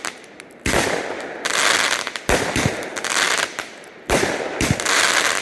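Fireworks going off: three loud bangs about a second and a half apart, each followed by a crackling hiss. A few smaller pops come near the end.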